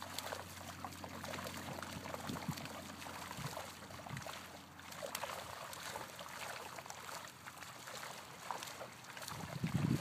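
Pond water splashing and trickling as fish break the surface, with many small splashes over a steady watery hiss. A louder, deeper stretch begins near the end.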